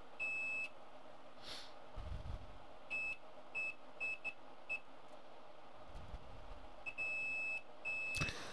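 Multimeter continuity beeper sounding in irregular beeps of one steady high tone as the probes make and break contact, some brief and some held for over half a second. The beep signals continuity between two points that should be isolated: a dead short on the board.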